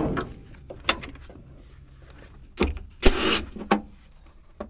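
A DeWalt cordless driver run in short bursts about three seconds in, after a few light knocks on the truck's cab metal.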